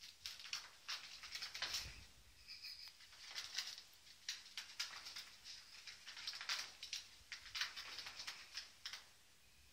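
Kittens scampering and pouncing on a carpet: quick, irregular scratching and pattering of claws and paws, coming in clusters. A brief high note sounds about two and a half seconds in.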